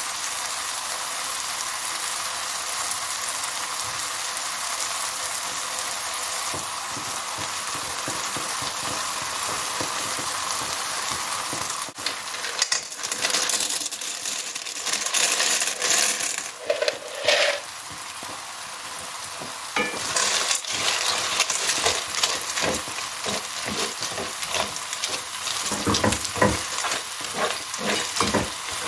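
Onion, pepper, tomato and tomato puree sizzling steadily in a frying pan. About twelve seconds in, dry penne pasta is poured in with a clatter of sharp clicks for a few seconds. From about twenty seconds a wooden spoon stirs it in repeated scraping strokes against the pan.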